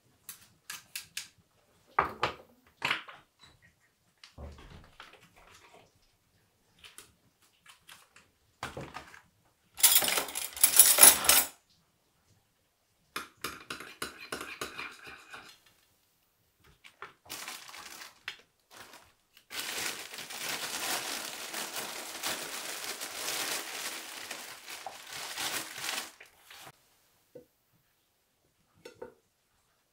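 Kitchen food-preparation sounds: a metal garlic press clicking and knocking, and a spoon clinking and scraping against a china bowl while mayonnaise is stirred. There is a louder clatter about ten seconds in and, later, a steady rasp lasting about six seconds.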